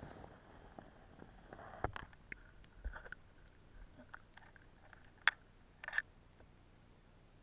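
Faint, scattered clicks and knocks as an underwater camera is moved about in a water tank, the sharpest click a little after five seconds in.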